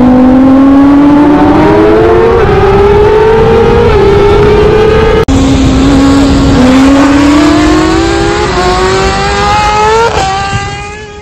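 Loud sport motorcycle engine accelerating hard through the gears, its pitch climbing and stepping down at each upshift. A sudden cut about five seconds in, then another run up through the gears that fades away near the end.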